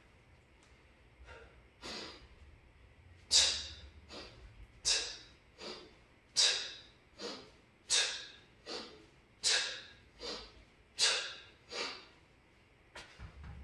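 Sharp, forceful breaths during two-handed kettlebell swings: a loud breath and a softer one in turn, the loud one coming about every one and a half seconds, once per swing, for about six swings.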